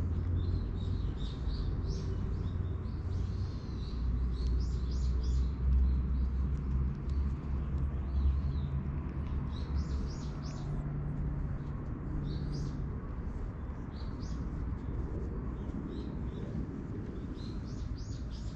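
Small birds chirping in short, repeated calls throughout, over a steady low rumble.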